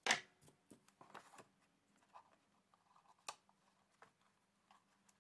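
A sharp snip of scissors cutting gold twine right at the start. It is followed by faint rustling and a few light clicks as the twine and box are handled, over a low steady hum.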